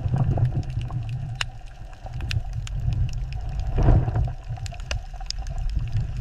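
Deep rumble of a fishing boat at sea, with scattered sharp clicks and splashy noise; the sound swells about four seconds in.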